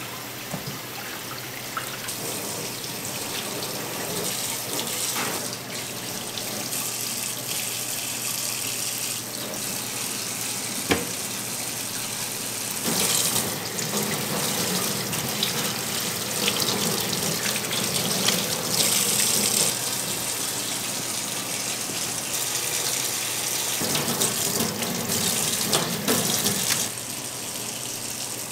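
Tap water running into a stainless steel sink and splashing over raw chicken pieces as they are rinsed by hand under the stream. It runs steadily, getting louder for several seconds around the middle and again near the end, with one short knock about a third of the way in.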